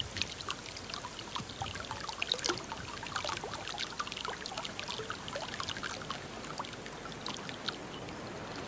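Water trickling and gurgling along a stone-lined irrigation channel, with many small quick splashes, settling into a steadier hiss near the end.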